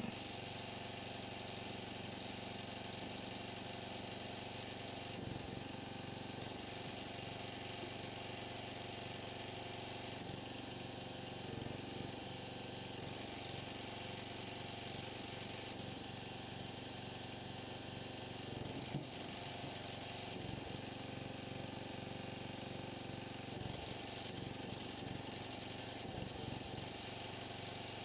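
Small gasoline engine of a homemade log splitter running steadily, with one sharp click about two-thirds of the way through.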